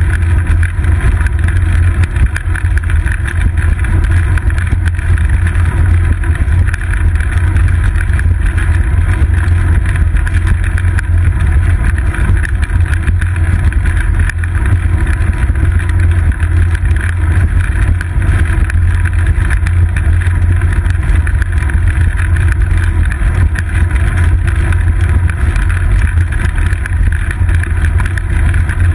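Steady loud low rumble of wind and road vibration from a bicycle rolling over stone paving, picked up by a seat-post-mounted GoPro.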